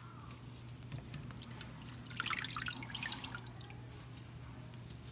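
Rinse water trickling and dripping out of a stainless steel bowl of shredded carrot and radish as it is tipped to drain, the vegetables held back by a towel over a bamboo basket. A brief spatter of drips comes about two seconds in, over a steady low hum.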